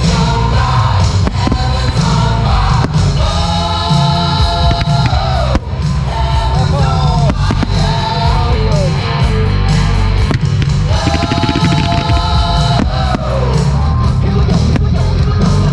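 A loud song plays over heavy bass: a singing voice holds long notes that slide down at their ends, twice. Sharp bangs, firework shells bursting, sound through the music.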